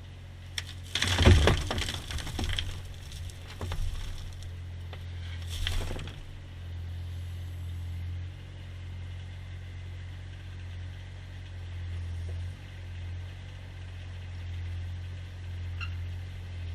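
An engine running with a steady low hum. A loud crash and rattle comes about a second in and tails off over a couple of seconds, and a shorter one follows near six seconds.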